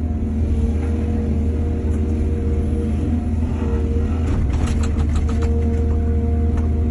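Excavator's diesel engine running steadily, with a spell of knocks and rattles about four to five and a half seconds in.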